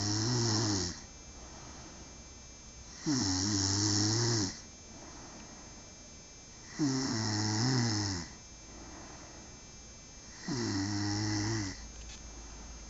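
A sleeping man snoring in a steady rhythm: four loud, buzzing snores, one about every three and a half seconds, each lasting just over a second, with quiet breathing between.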